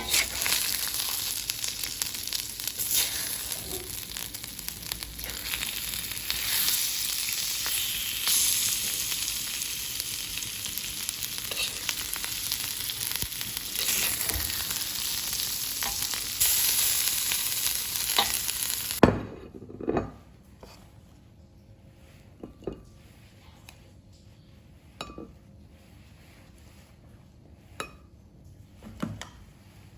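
Food sizzling as it fries in a pan, a dense steady hiss that cuts off abruptly about two-thirds of the way through. A few light knocks and clinks follow.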